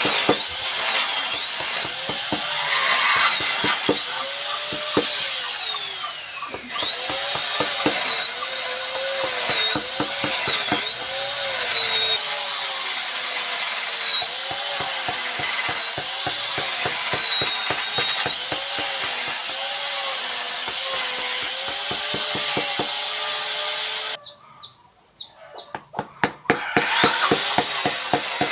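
A small high-speed electric carving tool cutting into wood, its whine dipping and recovering in pitch as the bit bites, over a fast rattle. About six seconds in it winds down and starts again; near the end it stops for a couple of seconds, leaving a few taps, then starts up again.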